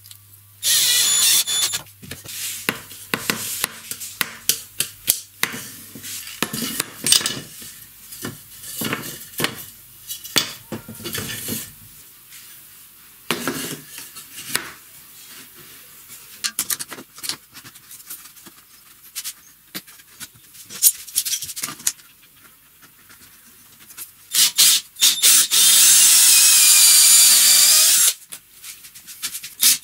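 Wooden pieces being handled and fitted, with many sharp knocks and clicks of wood on wood and on a bench in the first half, then scattered lighter clicks. Near the end a cordless drill runs into pine for about three seconds, its motor pitch wavering as it works.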